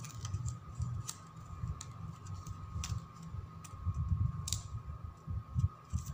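Plastic gift ribbon crinkling and clicking as fingers tuck and pull it tight into a rose petal, with soft bumps from the hands handling it.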